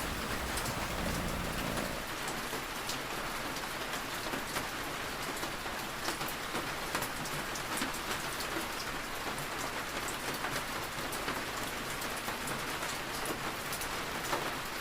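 Steady rain falling, an even hiss with many scattered drops pattering through it.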